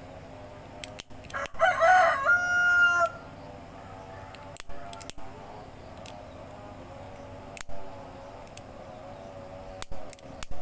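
A rooster crowing once, about a second and a half in, the call ending on a held note. A few sharp clicks follow later.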